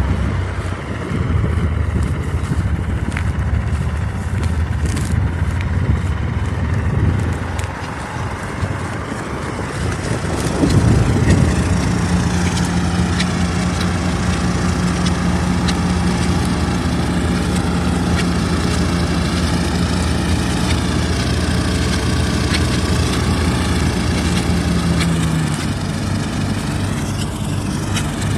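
Old combine harvester's diesel engine running steadily. About eleven seconds in the sound surges, and a steady hum joins it until a few seconds before the end.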